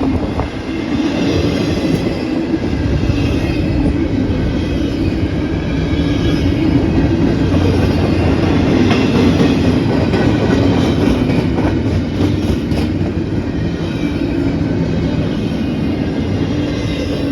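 CSX freight train passing at speed: a steady rolling rumble and clatter of steel wheels on rail as the cars go by, with faint wheel squeal, tapering off near the end.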